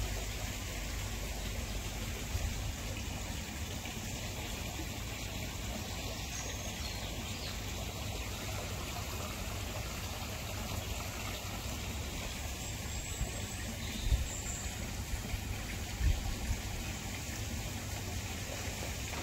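Steady trickling and running water of a garden koi pond, with a low rumble and a couple of brief low bumps on the microphone about two-thirds of the way through.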